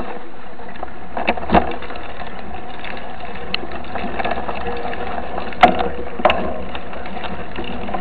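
Mountain bike being ridden along a grassy dirt track: a steady rushing noise, with a few sharp knocks and rattles from the bike, two about a second and a half in and two more a little past halfway.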